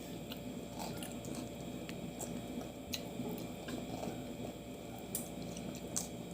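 Eating crab: quiet chewing and wet mouth sounds, with a few faint clicks and taps scattered through, over a steady low room hum.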